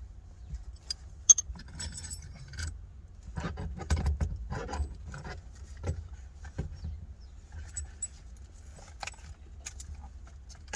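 Metal hand tools and parts clinking and rattling: a scatter of small sharp clicks and clanks, busiest a few seconds in, over a low steady hum.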